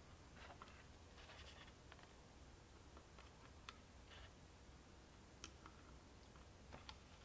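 Near silence with faint, scattered clicks and light scraping of fingers handling a small aluminum electronics case and working at its threaded brass SMA antenna connectors.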